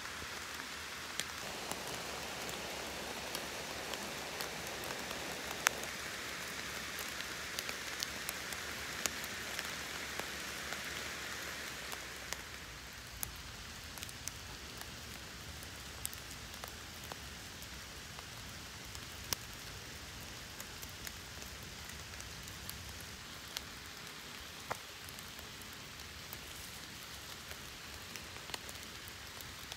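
Steady rain falling, with many individual drops ticking sharply close by; it becomes somewhat softer about twelve seconds in.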